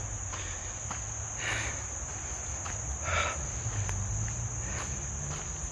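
Steady high-pitched chorus of crickets or other insects in the woods. Two soft scuffs of footsteps on the uneven dirt trail fall about a second and a half and three seconds in.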